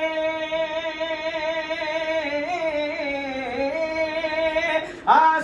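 A man singing a naat unaccompanied, holding one long, slightly wavering note that sinks in pitch about three and a half seconds in, then breaking off near the end as a new phrase begins.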